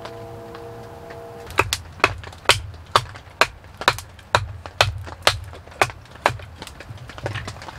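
A series of about a dozen sharp knocks, evenly spaced at roughly two a second, starting about a second and a half in. Before them a few low steady tones.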